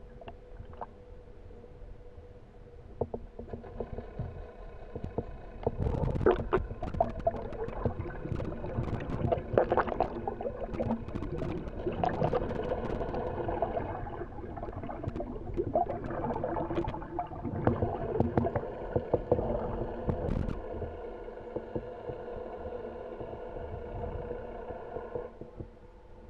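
Underwater sound of a boat's motor droning with a steady whine that shifts pitch a few times, mixed with bursts of splashing and bubbling water near the camera, busiest in the first half.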